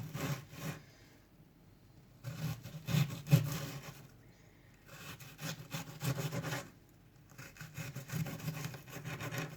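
Knife slicing an onion into rings on a cutting board: four runs of quick sawing strokes with short pauses between them.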